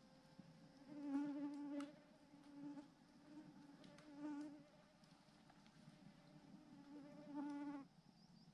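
A flying insect buzzing close to the microphone, its wavering hum coming and going in about five short passes, the longest about a second in and another near the end.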